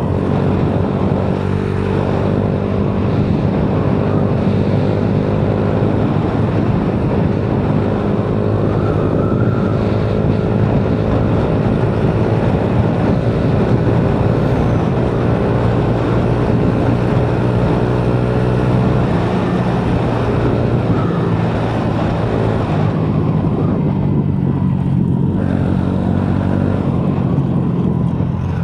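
Motorcycle fitted with an Exos X6 aftermarket muffler running along the road, its exhaust note steady with only slight changes in engine speed. The exhaust sound is deep and full, "bilog na bilog" (nicely round).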